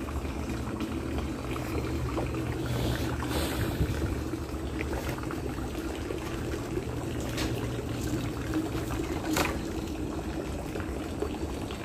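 Water running and trickling steadily, with a few short sharp splashes or knocks over it.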